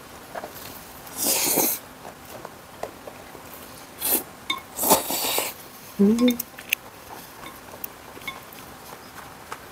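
Buckwheat noodles slurped in several loud bursts, with light clicks of chopsticks against dishes. A brief rising vocal sound comes about six seconds in.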